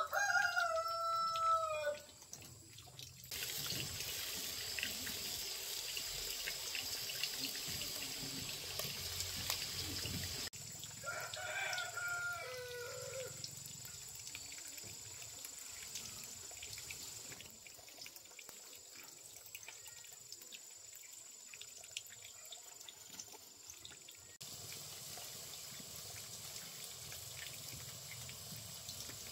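A rooster crowing twice, a held call at the start and a second, falling one about eleven seconds in, with water running steadily in between and after.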